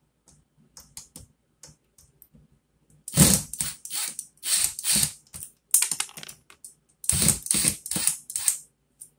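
Kobalt 24V cordless impact driver backing out cabinet-door hinge screws, run in short trigger bursts with a rattling whir. A few light clicks come first, then one run of bursts about three seconds in and another about seven seconds in.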